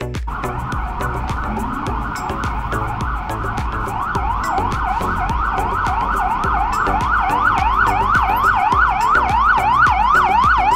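Fire truck's electronic siren approaching, sweeping rapidly up and down in a yelp that becomes clear and regular about four seconds in, about three sweeps a second, and grows steadily louder.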